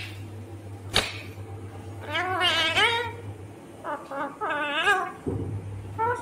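Green ringneck parrot (rose-ringed parakeet) calling in two wavering, pitched phrases, about two seconds in and again about four seconds in, with a sharp click about a second in, over a steady low hum.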